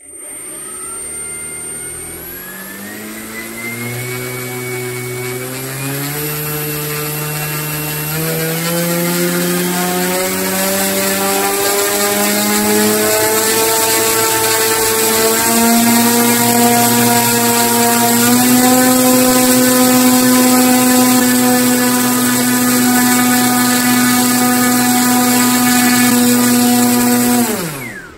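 Brushless electric motor spinning a GWS 10x6 propeller on a bench test, throttled up in steps so its whine and propeller hum rise in pitch, then held steady at high speed. About 27 seconds in the throttle is cut and the pitch falls quickly as the propeller spins down.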